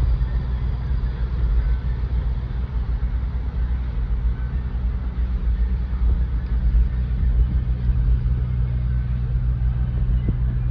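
A vehicle engine idling: a steady low rumble with a constant hum.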